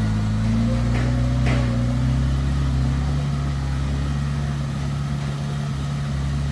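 Heavy diesel engine of earthmoving machinery running steadily, its note shifting slightly between about one and three seconds in.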